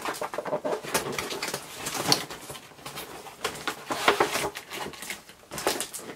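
Cardboard toy box with a clear plastic window being handled and turned over: scattered rustles, scrapes and light knocks, a little stronger about two and four seconds in.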